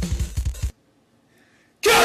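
A drum-machine beat playing under the song, which cuts off abruptly under a second in; after about a second of near silence, a loud whooping yell begins near the end.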